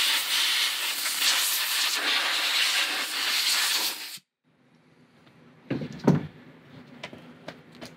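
Compressed-air blow gun blasting a steady hiss of air over a plastic fuel tank inlet check valve to clear debris from its threads. The hiss stops suddenly about four seconds in, followed by a few faint handling clicks.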